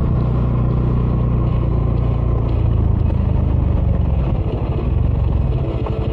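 Bajaj Dominar 400's single-cylinder engine running through its stock dual exhaust while riding: steady for about four seconds, then the throttle eases and the separate exhaust beats come through.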